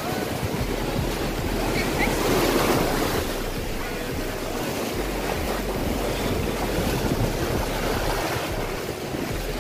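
Sea waves breaking and washing onto a sandy beach, one breaking louder about two to three seconds in, with wind rumbling on the microphone.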